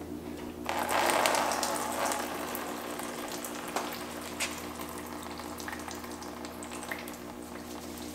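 Water left in a Ford Duratec engine block's coolant passages pouring out into a plastic drain tub as the block is tipped over on its engine stand: a hissing splash starts about a second in and fades to a trickle with scattered drips.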